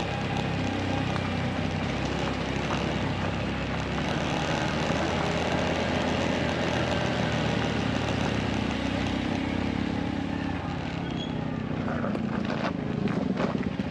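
Motorcycle engine running steadily under way, with wind hiss across the microphone and a few sharp knocks near the end.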